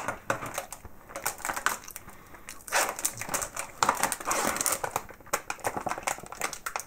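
A clear plastic sandwich wedge pack crinkling and crackling as its peel-off film is pulled open and the pack is handled. The sound is a run of irregular clicks and rustles, busiest around the middle.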